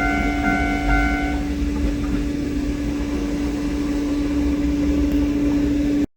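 Electronic level-crossing bell ringing about twice a second and stopping about a second and a half in, over the steady hum and low rumble of a passing electric train. Everything cuts off suddenly near the end.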